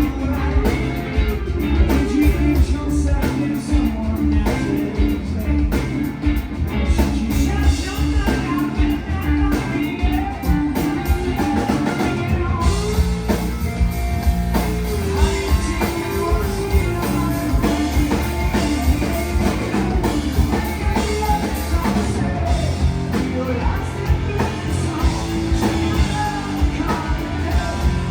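Live rock band playing loudly: electric guitars, bass and drum kit, with a lead vocal singing over them.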